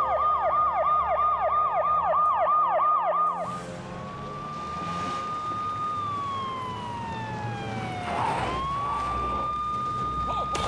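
Emergency sirens: a police car siren in a fast yelp, about four sweeps a second. About three and a half seconds in it changes suddenly to a slow wail that rises, holds, falls, and rises again a little past the middle.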